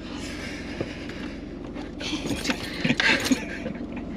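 Inside a car cabin: a low steady hum from the idling vehicle, with small clinks and rustling as someone moves about in the seat. The rustling is louder about two to three seconds in.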